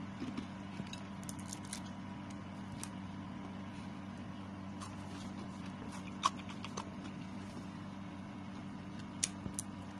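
Crispy deep-fried egg chips crackling and snapping as fingers break and handle them: a few scattered sharp snaps, the loudest about six seconds in, over a steady low hum.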